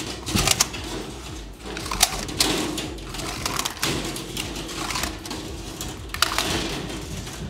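Metal fish tape being paid out from its reel and pushed up inside a hollow drywall wall cavity: irregular clicking, rattling and scraping of the steel tape.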